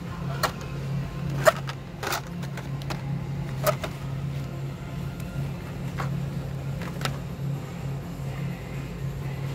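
Hot Wheels blister packs clacking against each other and the metal display pegs as they are flicked through: a handful of sharp plastic clicks, the loudest about a second and a half in, over a steady low hum.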